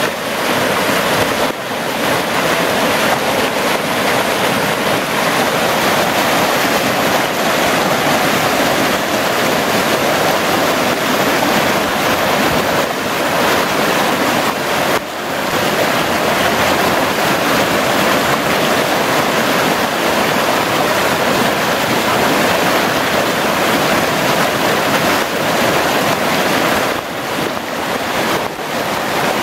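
Fast creek water rushing and tumbling over rocks in small rapids: a loud, steady whitewater noise, dipping briefly a few times.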